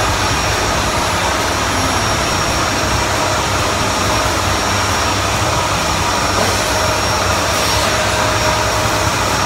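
Steady rushing noise of an electric air blower running without a break, a constant drone with a faint thin whine on top.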